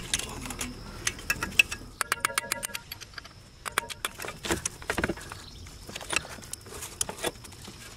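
Light metallic clicks, knocks and scrapes as the front CV axle's splined outer shaft is worked by hand out of the rusty steering knuckle and hub. About two seconds in there is a quick run of rapid clicks.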